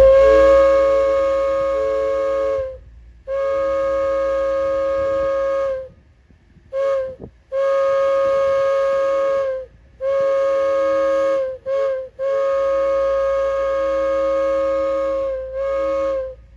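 Multi-chime train air horn sounding a steady chord of several notes in a run of long blasts, with a few short toots between them.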